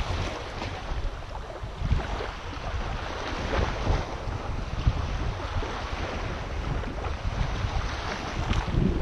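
Wind buffeting the action camera's microphone in gusts, over the hiss of small waves washing up the sand.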